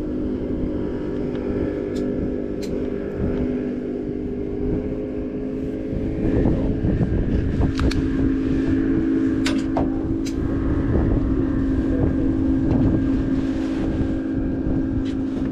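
Fishing boat's engine running with a steady drone, with wind on the microphone and a few light sharp clicks.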